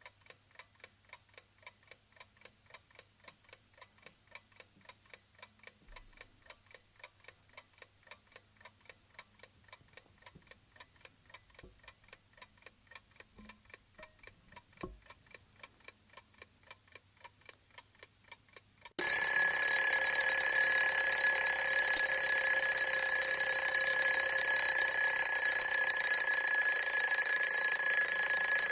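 Vintage wind-up mechanical alarm clock ticking faintly, about four ticks a second. After about nineteen seconds its alarm bell starts suddenly and rings loud and continuous.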